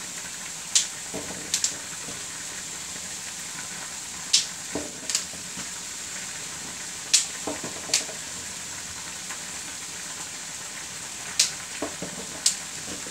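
Fresh asparagus spears snapped by hand: crisp, sharp snaps in pairs, each spear's woody end snapped off and then the spear snapped in half, about eight snaps in all. Under them, a steady sizzle of ham and mushrooms frying in a pan.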